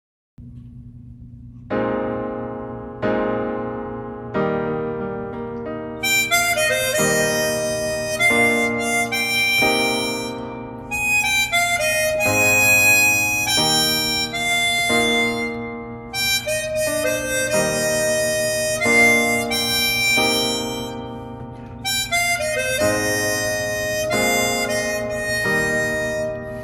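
Harmonica playing a melody. It opens with a few separate held chords, then a busier run of notes from about six seconds in.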